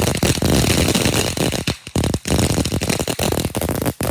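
Firework going off with a loud, dense, rapid crackling and popping, with a brief break about two seconds in.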